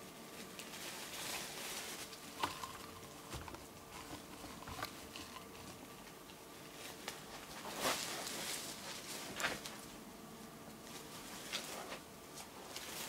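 Faint, scattered rustles and soft clicks over a steady low electrical hum, with a few sharper ticks about two and a half, eight and nine and a half seconds in.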